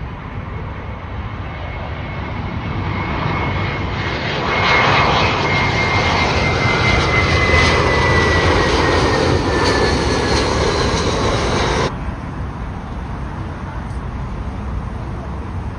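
Jet airliner passing low overhead: the engine noise builds to a loud peak, with a high whine that slides slowly down in pitch as it goes by. About twelve seconds in the sound cuts off abruptly, leaving a low background rumble.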